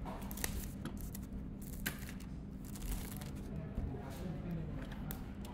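Plastic shrink wrap on a cardboard product box being cut and peeled, crinkling, with scattered sharp clicks and scrapes at irregular intervals.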